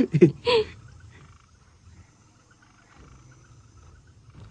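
A short burst of voice at the start, then a faint chorus of frogs croaking in a repeating pattern.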